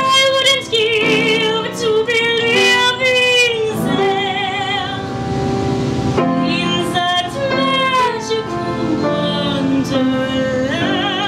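A woman singing long, held notes with a wide operatic vibrato, over grand piano accompaniment.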